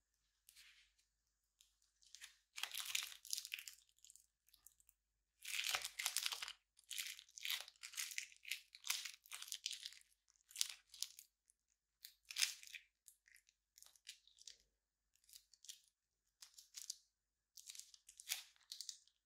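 Thick clear slime squeezed out of a plastic piping bag into a dish of clear slime, crackling and squelching in irregular bursts as air pops through it.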